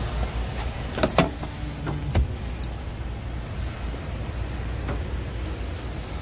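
Several sharp knocks and clunks over a steady low rumble, from someone climbing the steps into a truck cab. The loudest are a pair about a second in and another just after two seconds.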